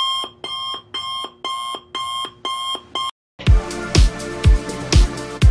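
Electronic beeping, about two beeps a second, each beep a steady tone that drops in pitch at its end; it stops about three seconds in. After a short gap, electronic music starts with a heavy kick drum on every beat, about two a second.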